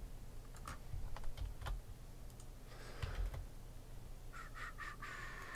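Faint, scattered clicks and taps of a computer keyboard and mouse, with a quick run of key clicks near the end.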